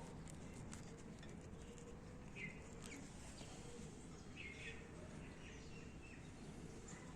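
Faint, short bird chirps every second or two over a low, steady background hiss.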